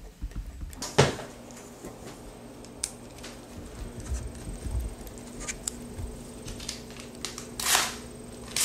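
Small handling sounds of a pen writing on paper on a granite countertop: scattered clicks and scratches, a sharp knock about a second in, and two short hissy rushes near the end, over a faint steady hum.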